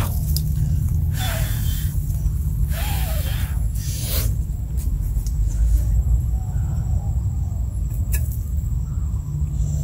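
Wind rumbling on the microphone, with three short rushes of hiss in the first half and a couple of light clicks about eight seconds in.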